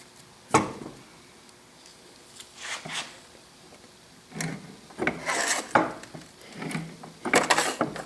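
Beverly B2 throatless hand shear cutting 28-gauge galvanized sheet steel with dull blades: a sharp click, then several rasping cutting strokes, the loudest in the second half.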